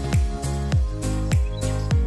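Background music with a steady, deep beat just under twice a second over sustained tones.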